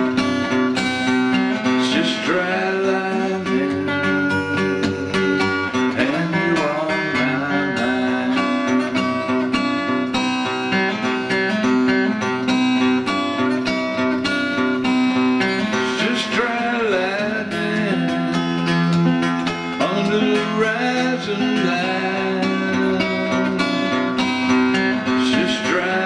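Seagull steel-string acoustic guitar strummed steadily in an instrumental passage, with regular chord strokes.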